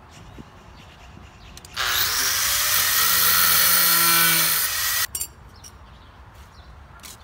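Electric angle grinder cutting through a piece of flat metal bar: a loud, high-pitched grinding burst of about three seconds that starts about two seconds in and cuts off suddenly.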